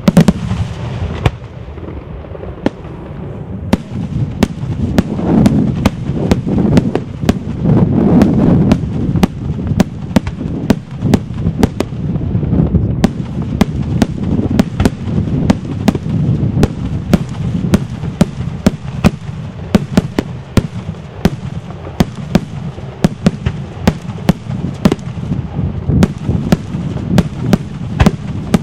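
Daytime display fireworks: a dense, unbroken barrage of sharp bangs from aerial shells bursting into smoke overhead, over a low rumble of overlapping detonations that swells about five to nine seconds in.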